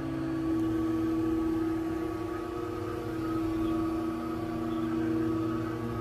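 Inos window-cleaning robot running on the glass: its suction fan and drive make a steady hum, with a slight shift in tone about half a second in.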